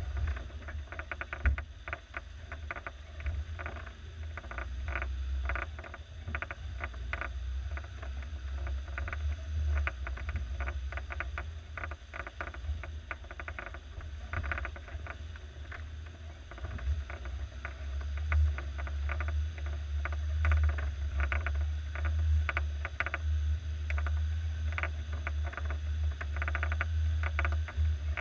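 A 1987 Suzuki SJ413's 1.3-litre four-cylinder engine running with a deep, steady low rumble as the vehicle drives over rough forest ground. Frequent short knocks and rattles come through as it jolts along, and the rumble eases off twice before building again.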